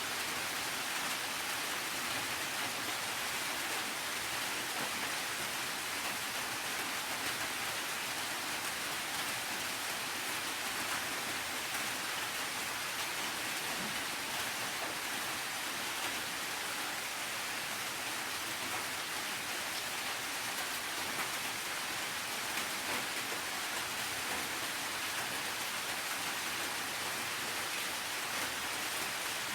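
Steady rain falling, an even hiss of rain with no thunder or breaks.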